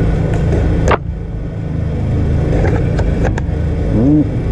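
A single shot from an upgraded Tokyo Marui VSR-10 spring airsoft sniper rifle about a second in, a sharp snap. A steady low engine-like drone runs underneath.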